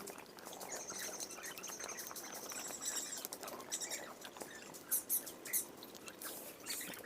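Wood campfire crackling faintly, with scattered small pops and ticks.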